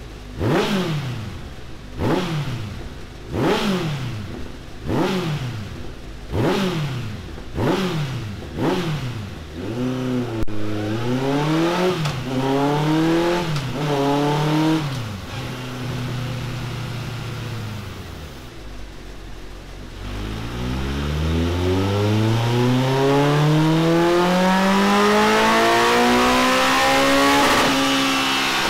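Honda CB1300 SuperFour's inline-four engine breathing through a Delkevic X-Oval titanium exhaust on a rolling-road dyno. Over the first ten seconds it gives a string of quick throttle blips, about one every second and a half, then a few uneven revs and a short spell at idle. From about two-thirds in, the revs climb in one long steady rise to high rpm.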